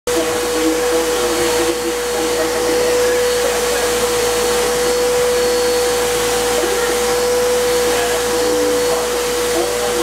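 Vacuum cleaner running steadily, a constant even-pitched whine over a rushing hiss of air drawn through its hose.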